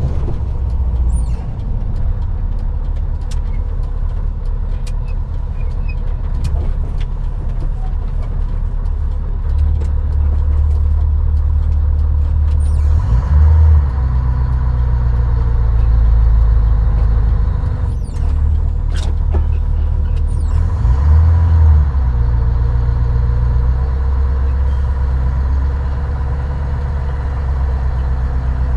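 Scania R143E500's 14-litre V8 diesel engine running at low speed, heard from inside the cab, its note rising and falling a few times as the truck is driven. A few short sharp sounds come about two-thirds of the way through.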